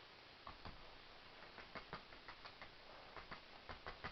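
Bristle brush tapping and dabbing acrylic paint onto a stretched canvas: faint, irregular soft taps, several a second.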